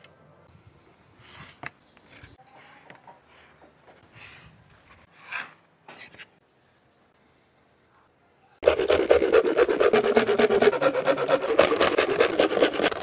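Faint scratches of a pointed tool drawn along a ruler, scoring lines on a PVC sheet. About two-thirds in, a saw blade starts cutting through the PVC sheet in fast, even strokes, much louder, with a wavering tone under the strokes.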